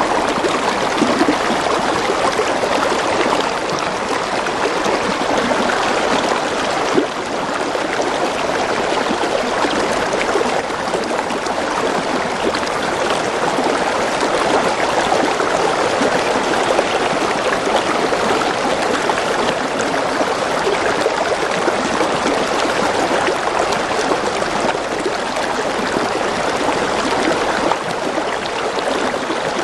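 Steady heavy rain falling, a dense and even hiss without letup.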